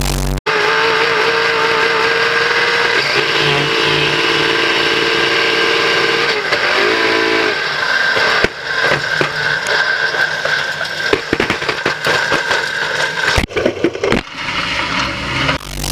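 Onboard sound of a superstock race car's engine running at speed, a steady note that dips and rises again about seven seconds in. In the second half it turns rough and crackly, with several sharp knocks as the camera is struck and knocked loose. A short burst of TV-static effect opens and closes it.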